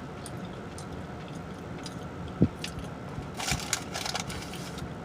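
Close-up chewing and crunching of food, with wet mouth smacking. There is a single sharp low thump about halfway through and a short burst of crisp crunching about a second later, over a steady low hum.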